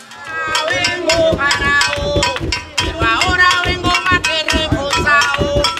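Cuban rumba: hand drums, congas, playing a fast, dense rhythm with a singing voice over them, starting about a third of a second in.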